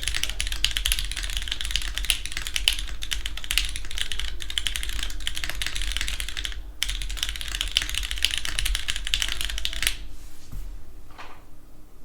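Mechanical keyboard with lubed vintage Cherry MX Black linear switches, a full aluminium plate, GMK keycaps and no sound dampening, being typed on quickly and steadily. There is a short pause partway through, and the typing stops near the end, leaving a few scattered keystrokes.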